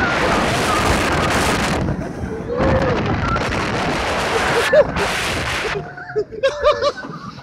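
Wind rushing over the microphone of a moving roller coaster, with riders' voices heard through it. About six seconds in, the rush drops away and only the riders' voices remain.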